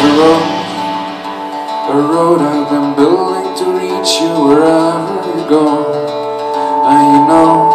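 Live band playing an instrumental passage: strummed acoustic guitar over electric guitar, bass and keyboards, with some notes gliding up and down in pitch.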